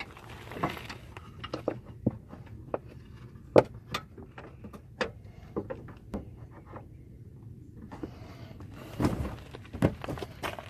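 Scattered clicks and knocks of a car's plastic wheel well liner being handled and pushed back into place, a few louder thunks among them.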